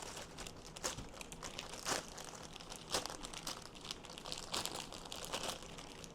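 Packaging crinkling and rustling in irregular handling bursts with sharper crackles, as it is worked loose from around the hot air rework station's handpiece and hose.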